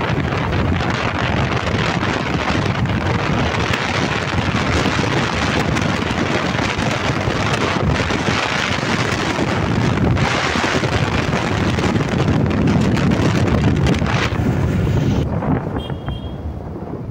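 Heavy wind rushing over the microphone of a moving motorcycle, with engine and road noise low beneath it; the rush dies down sharply near the end.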